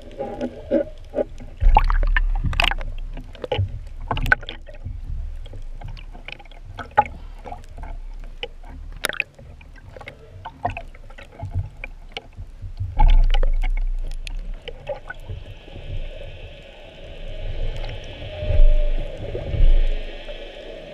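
Underwater sound of a spearfisher hauling in the shooting line and a speared dentex: water sloshing and rushing against the speargun-mounted camera, with many sharp clicks and knocks from the gear. Three heavy low surges of water noise come about two seconds in, midway and near the end, and a steady hiss joins in for the last few seconds.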